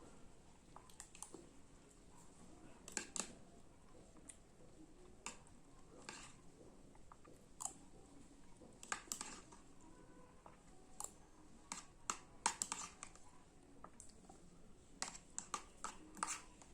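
A person eating: faint chewing with scattered small wet clicks and smacks of the mouth, some of them louder than the rest.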